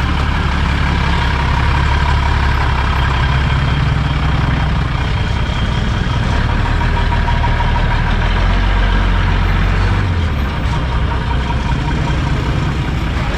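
Old round-nosed tow truck's engine running as the truck rolls slowly past close by; the engine note drops about ten seconds in.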